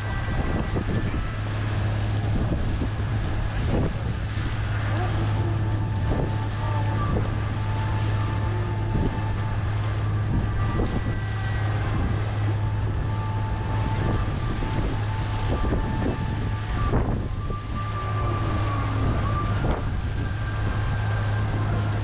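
Sightseeing cruise boat's engine running with a steady low drone while under way, with wind buffeting the microphone.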